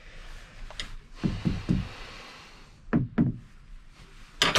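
A wrench tightening a fitting on a marine engine: dull knocks and clunks of the tool against the engine, three about a second in and two about three seconds in, then a sharp click near the end.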